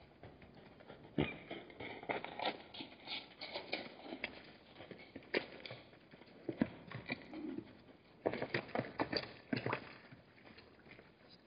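Hooves of Hartmann's mountain zebras clicking and knocking irregularly on stony ground as the herd moves about the waterhole, with a soft low sound about seven and a half seconds in.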